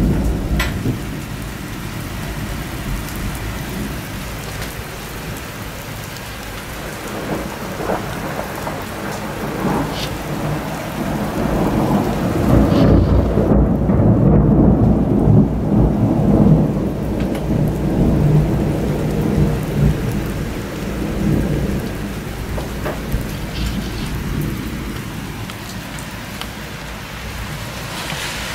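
Thunderstorm: steady rain falling, with low thunder rumbling throughout. A long roll of thunder swells about twelve seconds in, lasts several seconds, then dies back.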